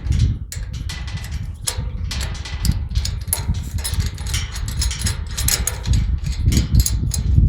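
Irregular metal clinks and scrapes as a slide bolt latch's brackets are handled and positioned on a tubular metal gate, over a low rumble of wind on the microphone.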